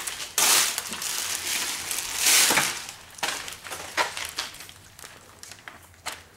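Thin plastic window tint film and its release liner crinkling and rustling as they are handled, loudest in the first few seconds, then softer crackles as the film is laid against the glass.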